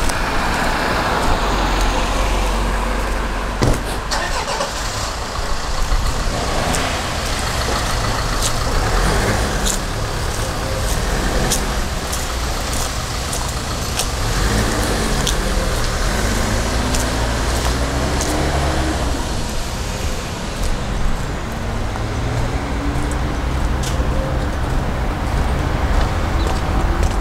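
Road traffic: cars passing one after another over a steady low rumble, their engine hum rising and falling in pitch as each goes by.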